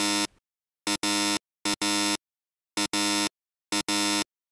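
Buzzer sound effect: a short blip followed by a longer flat buzz, the pair repeated about four times with dead silence between.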